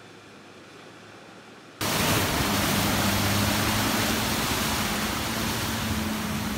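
Four-wheel drive ploughing through deep floodwater: a loud rush of water washing over the bonnet, with the engine's steady hum underneath. It starts abruptly about two seconds in, after faint distant splashing.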